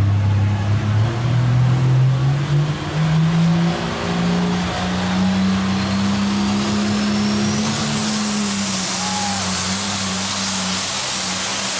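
Pulling tractor's diesel engine revving up under load as it starts to pull a weight-transfer sled. Its pitch climbs steadily for about six seconds and then holds, while a high whine rises over it as the turbo spools up.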